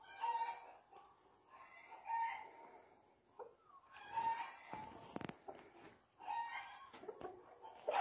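Chickens clucking and calling: short, pitched calls repeating every second or two, with a brief burst of noise about five seconds in.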